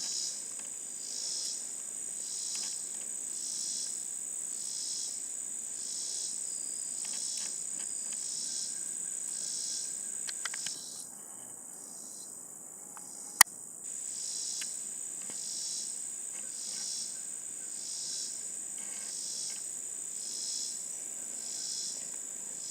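Insects calling outdoors: a steady high-pitched trill with a second pulsed call repeating about once a second, which stops for about three seconds midway. A single sharp click about thirteen seconds in.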